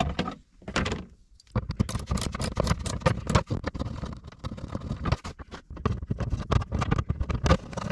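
Hard plastic of a truck's dash-top storage bin being handled and worked at by hand: a dense, irregular run of clicks, knocks and scrapes that starts about a second and a half in.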